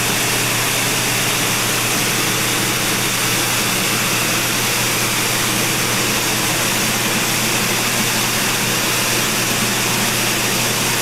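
Mountain stream water rushing steadily, an even hiss with a steady low hum beneath it.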